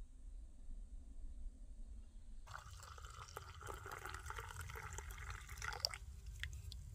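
Coffee poured into an enamel mug: a liquid stream filling the mug, starting about two and a half seconds in and stopping about a second before the end.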